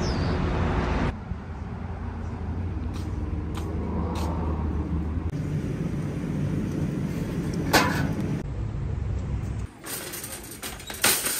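Steady low rumble of traffic and vehicles, with a sharp click about eight seconds in. Near the end comes a metallic clatter and rattle as a plastic-and-metal shopping cart is pulled out of a row of nested carts.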